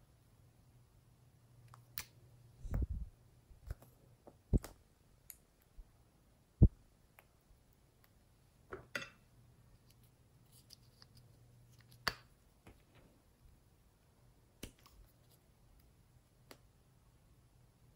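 Scattered sharp clicks and taps of makeup tubes and applicators being handled over glass dishes, with a cluster of knocks about three seconds in and the loudest single click about halfway through, over a faint steady hum that stops about two-thirds of the way in.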